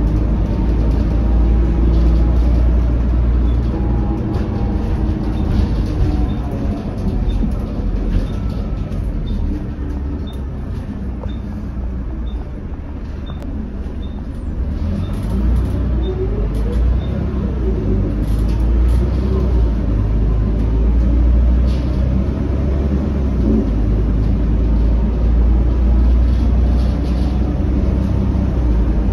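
Interior of a Volvo B12BLE city bus on the move: the rear-mounted twelve-litre six-cylinder diesel running with a heavy low rumble and road noise. Near the middle it eases off and goes quieter for a few seconds, then pulls away again with the engine note rising. A light regular ticking, about one a second, sounds through the middle stretch.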